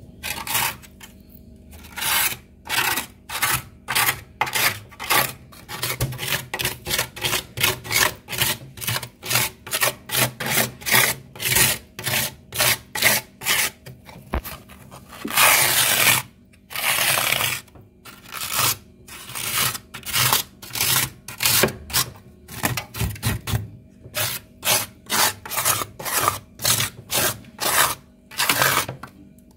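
A plastic card scraping thick frost inside a freezer, in quick strokes of about two a second, with a couple of longer, unbroken scrapes about halfway through.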